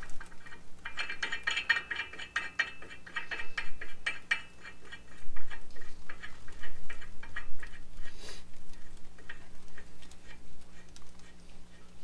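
Small metal clicks and ticks as a lug nut is spun by hand onto a wheel stud to hold a new brake rotor in place on the hub. A fast run of ticks comes in the first few seconds, then sparser clicks with one louder clink a little past the middle.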